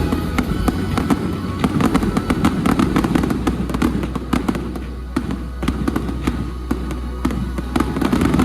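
A fireworks display going off in a dense volley: many sharp bangs and crackles in quick succession over a steady low rumble.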